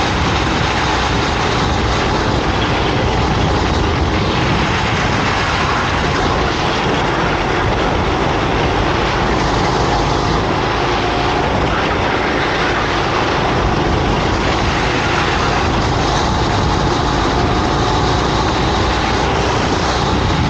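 Racing kart engine running at speed, a loud, steady, dense noise with no break.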